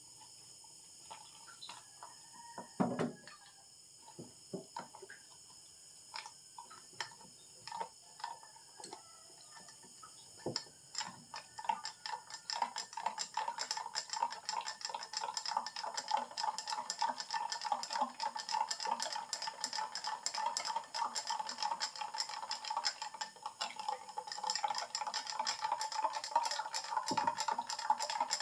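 Spoon stirring a drink in a drinking glass, clinking against the glass: scattered clinks at first, then from about halfway through a rapid, continuous clinking. One louder knock about three seconds in.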